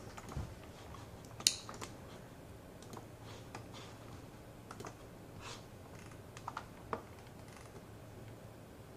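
Sparse, soft clicks of someone working a computer's keyboard and mouse, with one sharper click about a second and a half in, over a faint steady room hum.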